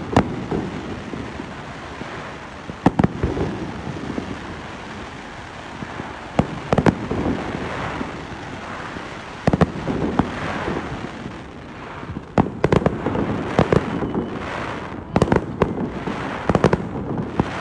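Aerial fireworks bursting: sharp bangs at irregular intervals, some in quick clusters, over a continuous crackle. The bangs come thicker in the last few seconds.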